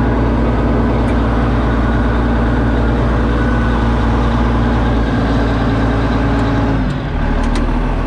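Diesel engine of a Dresser TD20G crawler dozer running steadily. About seven seconds in, the engine note drops and changes, with a few light clicks.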